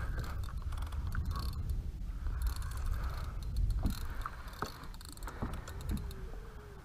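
Spinning fishing reel being cranked, its gears whirring and clicking in spurts, over a low wind rumble on the microphone.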